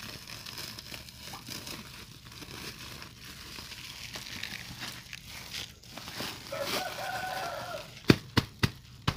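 Woven plastic sack crinkling and rustling as it is untied and pulled open around a plant's root ball. A chicken calls briefly about seven seconds in, and near the end a quick run of sharp taps begins, about three a second.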